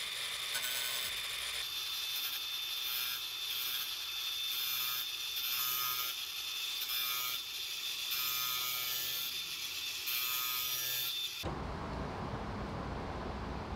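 A ratchet being worked in quick repeated strokes, about one every two-thirds of a second, with rasping clicks on each stroke. About two seconds before the end it cuts off suddenly and a low, even rumble takes over.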